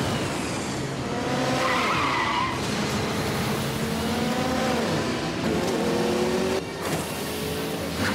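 Cartoon sound effect of a vehicle engine running hard, its pitch rising and falling, with skidding tires as the vehicle speeds past.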